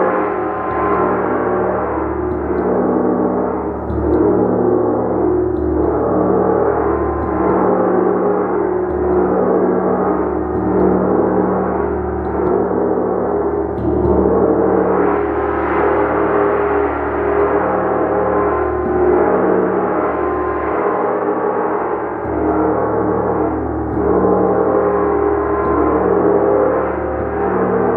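A gong played continuously with a mallet, building a loud, dense sustained tone of many overlapping pitches that swells and dips every second or two as the strokes keep coming.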